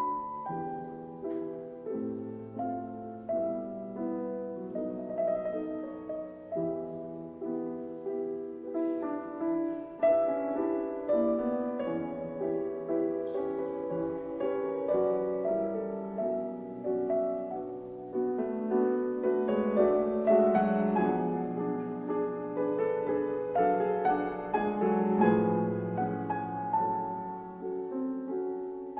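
Piano music: a gentle melody of separate notes over chords.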